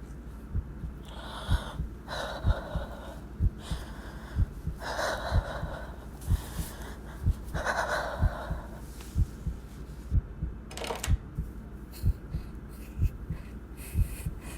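Heartbeat sound effect: low thuds about once a second, some in close lub-dub pairs, over a steady low hum, with several soft hissing swells in between.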